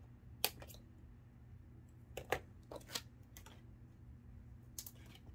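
Scissors snipping the paper tags off cotton tea towels: a handful of short, sharp clicks and snips spread over several seconds, the loudest about half a second in and just after two seconds, with light handling of paper and fabric.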